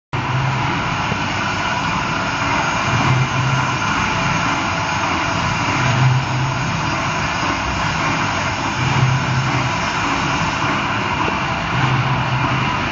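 CNC lathe running: a steady machine noise with a low hum that swells at regular intervals of about three seconds.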